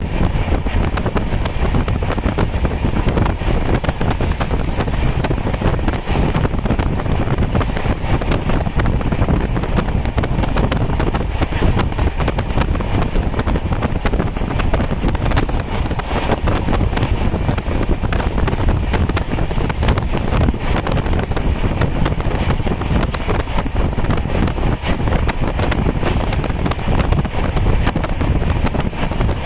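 Wind rumbling and buffeting steadily on the microphone.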